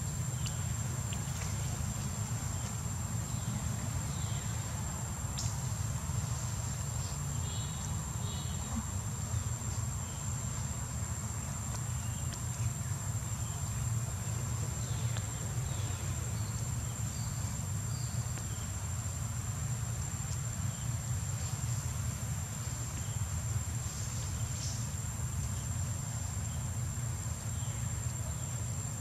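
Outdoor ambience: a steady, high-pitched insect drone over a constant low rumble. Two short bird chirps come about a quarter of the way in, with scattered faint ticks throughout.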